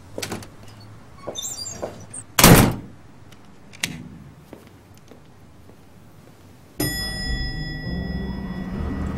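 An apartment front door slams shut about two and a half seconds in, the loudest sound, after a few small clicks of the handle, with a lighter click of the latch a second later. Near the end a steady elevator-cabin hum starts suddenly.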